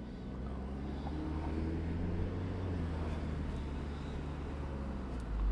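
Car driving, a steady low engine and road drone heard from inside the cabin.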